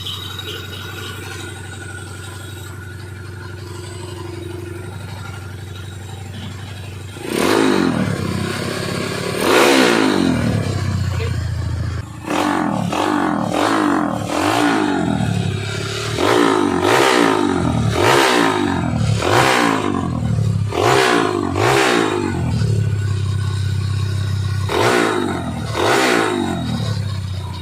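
Honda 110 cc single-cylinder four-stroke motorcycle engine, freshly fitted with a four-valve head and machined piston, idling steadily, then revved about seven seconds in with about ten sharp throttle blips, each falling back toward idle.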